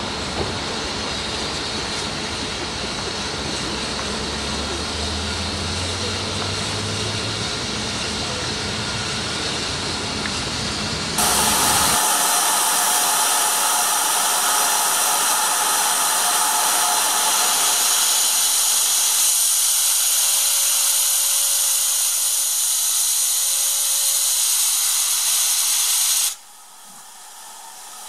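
Steady low rumble with hiss, then a loud, steady hiss of steam escaping around the cylinders of GWR 0-6-0 pannier tank No. 1501. The hiss cuts off suddenly near the end.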